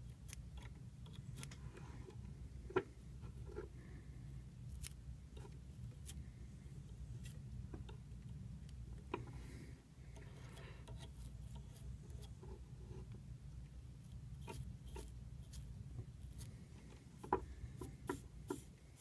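Small scissors snipping stacked deer hair to trim and round the body of a fly: faint, irregular sharp snips scattered through, over a low steady hum.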